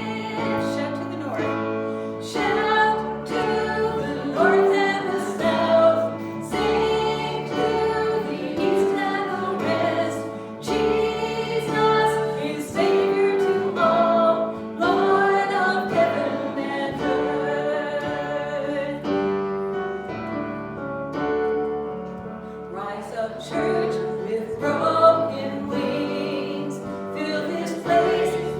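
Voices singing a worship song with instrumental accompaniment, long held notes over a steady bass line.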